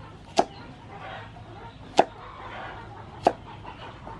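Three sharp chops of a cleaver cutting through a carrot and striking a thick round wooden chopping block, spaced about a second and a half apart.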